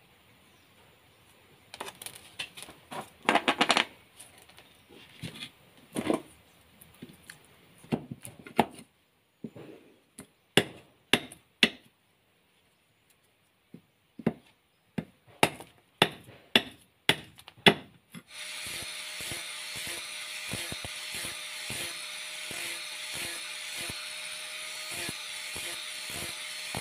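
A long hand blade chopping and shaving a wooden stick on a block: a string of sharp knocks and scrapes. About eighteen seconds in, an angle grinder with a flap disc starts and runs steadily, sanding the wooden handle.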